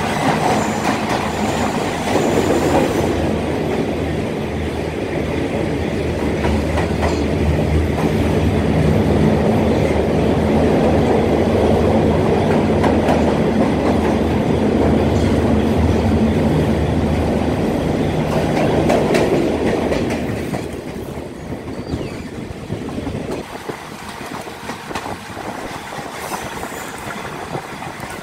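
Passenger train running through a tunnel, heard from an open coach window: a loud, dense rumble of wheels and running gear echoing off the tunnel walls. About twenty seconds in it drops off sharply to a quieter run as the train comes out into the open.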